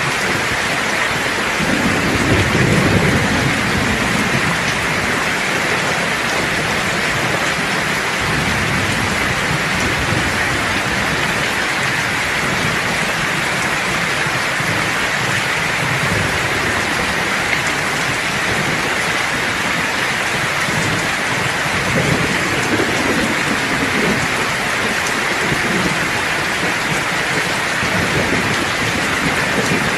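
Steady heavy rain hissing on surfaces, with low rolls of thunder rumbling about two seconds in and again past the middle.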